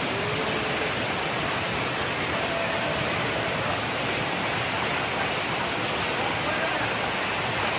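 Stream water rushing and splashing over rocks just below a waterfall: a steady, unbroken rush.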